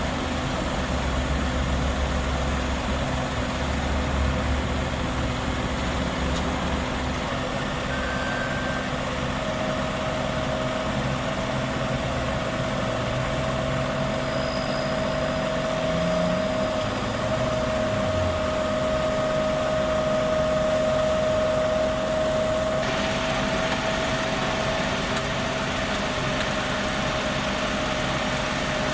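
Heavy diesel engines of a dump truck and a Sumitomo asphalt paver running steadily at low revs during paving. A steady whine joins the rumble about ten seconds in.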